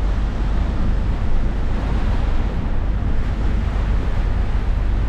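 Volvo B8R coach driving at speed through heavy rain, heard from the driver's cab: a steady low rumble with an even rushing hiss of tyres on the wet road and rain on the windscreen.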